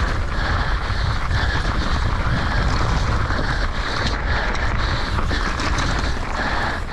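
Mountain bike racing down a rough trail, with steady wind buffeting the microphone and tyre rumble. Through it comes the rider's heavy, rhythmic breathing, about one breath every two-thirds of a second, a sign of hard race effort.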